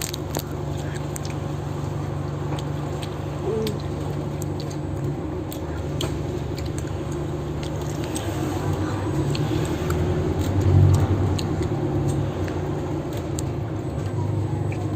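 City bus engine drone heard inside the passenger cabin, a steady low hum that swells louder about two-thirds of the way through, with scattered sharp rattles and clicks from the bus.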